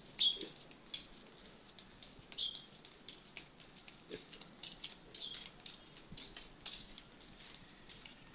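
Footsteps in rubber flip-flops slapping along a concrete path, with a carried plastic bag rustling. A few short high chirps stand out over the patter, the loudest about a quarter second in.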